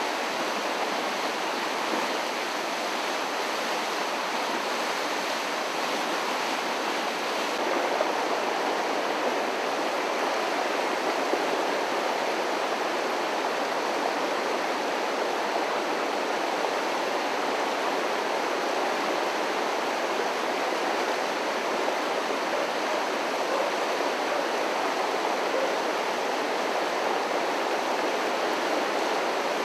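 Flooded Fish Creek rushing past in a steady, unbroken roar of fast water.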